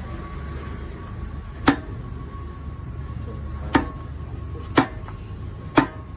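Four sharp knocks of metal on metal at the tractor's lift-arm assembly. The first is on its own and the last three come about a second apart, over a steady low hum.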